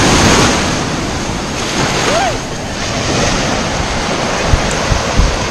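Ocean surf breaking and washing up the sand at the water's edge, loudest as a wave breaks at the start, with wind buffeting the microphone.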